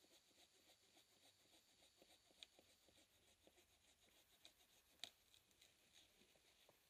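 Faint, even strokes of a hand saw cutting through a thin fallen tree, about three strokes a second, with two sharper clicks, the louder one about five seconds in.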